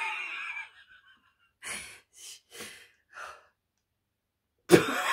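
A few short, soft breaths and sighs from people sitting close to the microphone, then someone bursts out laughing near the end.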